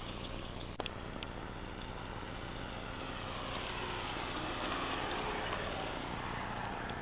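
Delta-11 electric motorcycle riding by, its motor whine gliding up and down in pitch over a steady rushing noise. A sharp click about a second in.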